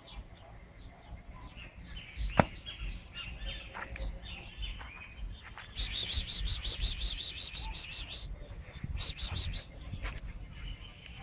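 Birds chirping, with a single sharp click about two seconds in. Just past halfway a loud, fast pulsing buzz, about ten pulses a second, runs for a couple of seconds, stops, and comes back briefly.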